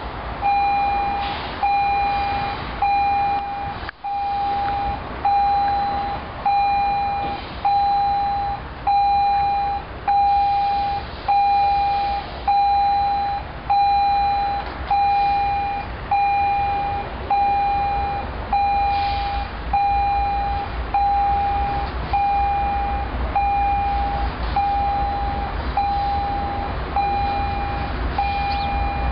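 Railroad grade-crossing warning bell dinging steadily, a sharp ding that fades, about once every second and a quarter, warning of an approaching train. A low rumble from the approaching locomotives builds under it near the end.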